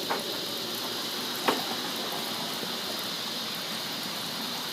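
Steady hiss, with two brief clicks about a second and a half apart.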